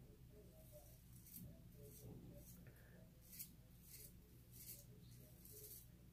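Faint, short scraping strokes of a CJB kamisori razor with a Feather Artist Club blade cutting through lathered stubble, about seven scrapes at an uneven pace of roughly one every half second to a second.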